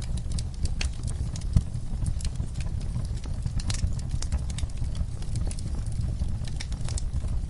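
Fireplace fire crackling: irregular sharp pops and snaps over a steady low rumble, with one louder pop about a second and a half in.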